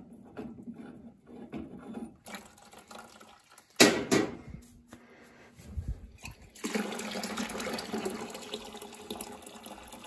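Water draining from a steam boiler's low-water cutoff, running out of an open pipe end into a plastic bucket as a steady pour that starts about two-thirds of the way in. A couple of sharp knocks come about four seconds in.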